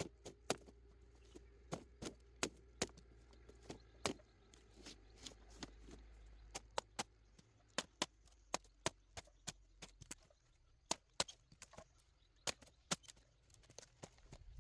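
Irregular sharp knocks and taps, about two or three a second, from hand work during repairs.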